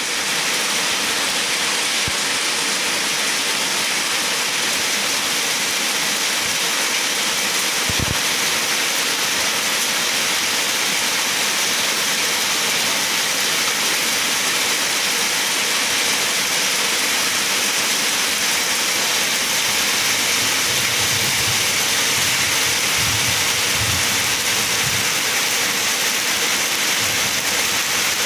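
Heavy rain falling steadily, an even hiss with no let-up, and one brief low knock about eight seconds in.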